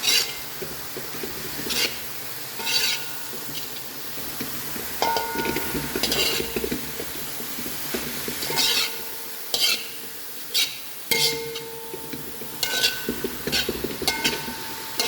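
Sausages and vegetables sizzling in a frying pan while they are stirred, with irregular scrapes and knocks of the utensil against the pan, some leaving a brief ringing tone.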